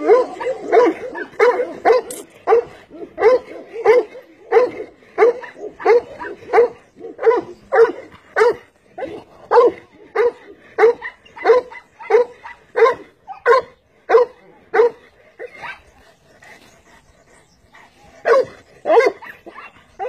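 Cane Corso barking over and over in deep barks, about two a second, until about fifteen seconds in. After a short lull come two more barks near the end.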